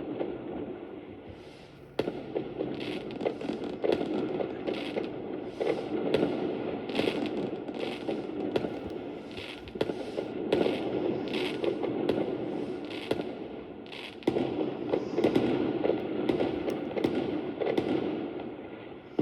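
Fireworks going off in quick succession, a continuous crackle of pops and bursts, with sudden jumps in loudness about two seconds in and again about fourteen seconds in.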